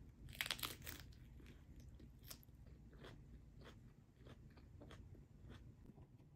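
Crisp lettuce wrap bitten into, with a sharp crunch about half a second in, then chewed with softer crunches every fraction of a second.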